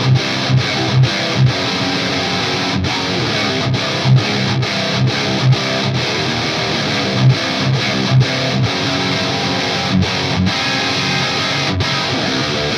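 High-gain metal rhythm riffs on a solo electric guitar (ESP LTD NW-44 with a Bare Knuckle Aftermath pickup) through a Mesa Boogie Dual Rectifier on its red channel in modern mode, heard through a cab modelled on an oversized Mesa 4x12 with V30s. The tone has a big thumpy low end, scooped mids and a sizzly top end, and the tight riffs stop short many times.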